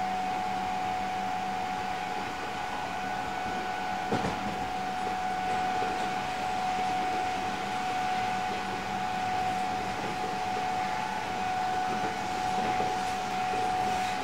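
Running noise inside an Odakyu 8000 series electric train, a refurbished motor car with fully enclosed traction motors, at a steady speed: an even rumble with a steady high whine. One sharp knock about four seconds in is the wheels passing a rail joint.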